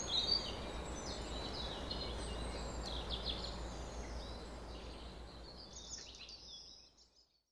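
A small songbird singing in short chirping phrases over a steady outdoor background hiss, both fading out near the end.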